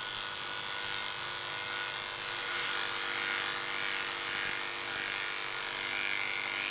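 Electric dog grooming clippers with a comb attachment running steadily, a buzzing motor hum with a hiss of blades, as they skim through a long, soft coat.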